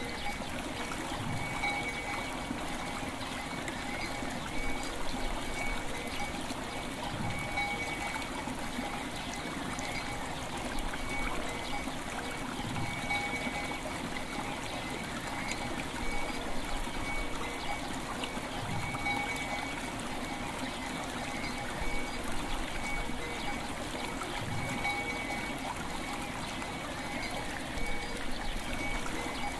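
River water running steadily, with bell tones ringing over it, the highest one pulsing. A soft low pulse repeats about every six seconds.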